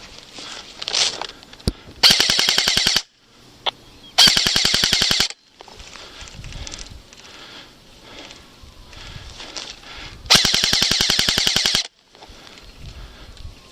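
Airsoft gun firing on full auto: three rapid, rattling bursts of about one to one and a half seconds each, the first two close together and the third a few seconds later, with a single sharp shot or click before the first burst and between the first two.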